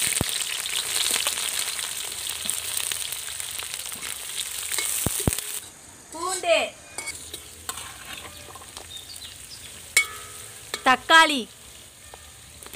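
Sliced onions dropped into hot oil in an iron kadai: a sudden loud sizzle as they go in, kept up while a steel ladle stirs them. After about five and a half seconds it falls to a quieter sizzle.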